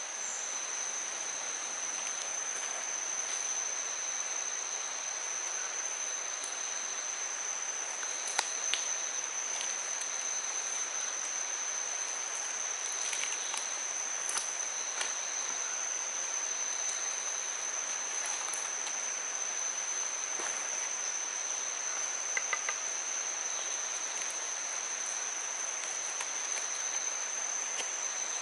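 Forest insects droning: one steady, unbroken high-pitched whine over a soft even hiss, with a few faint ticks.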